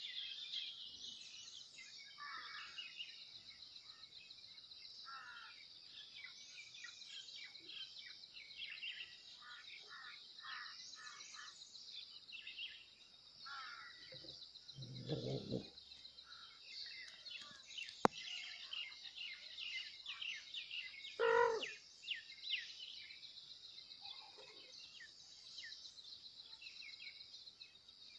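Birds chirping over a steady high-pitched drone. A lower, louder call comes about fifteen seconds in, a sharp click at about eighteen seconds, and a brief louder call about twenty-one seconds in.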